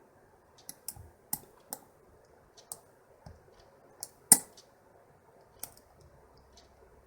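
Pin-tumbler lock being single-pin picked with a hook: irregular sharp clicks and clacks as the pins are lifted, including false "phantom" sets from a pin that is binding but not ready to set. The loudest clack comes a little over four seconds in.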